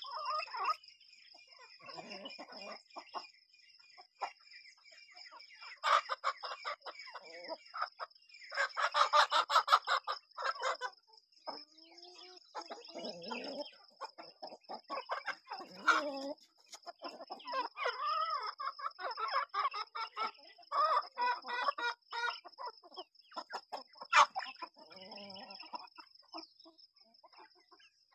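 Domestic chickens clucking and calling in repeated bursts, with a rooster crowing among them, over a steady high-pitched whine.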